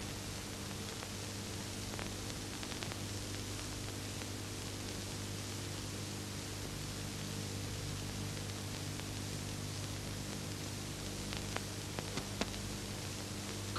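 Steady hiss and hum of an old film soundtrack, with a few faint clicks near the end.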